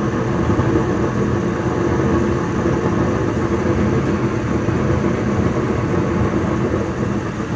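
Goodman gas furnace running with its burners lit: a steady rush of flame and blower over a low hum.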